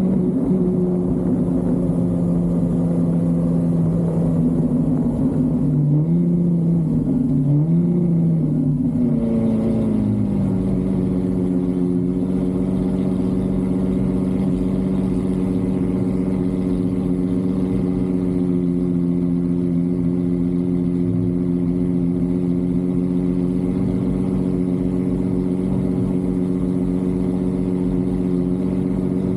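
Car engine running with a steady drone. Its pitch rises and dips a few times between about six and ten seconds in, then holds level.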